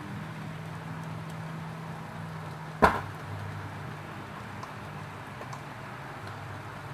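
Gas stove burner flame hissing steadily under foil-wrapped fish, with a low steady hum beneath. A single sharp knock comes a little under three seconds in.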